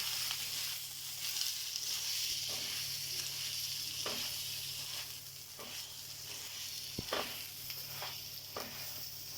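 Butter-brushed chicken paratha sizzling on a hot tava: a steady frying hiss with scattered small crackles and one sharper click about seven seconds in.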